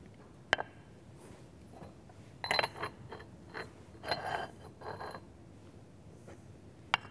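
Kitchen utensils and dishware handled while food is served and plated: a sharp click about half a second in, two short bursts of light clattering and scraping around the middle, and another click near the end.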